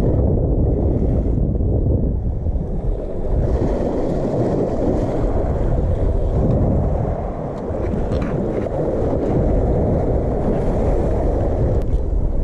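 Wind buffeting the microphone: a steady, loud low rumble without any distinct tone or rhythm.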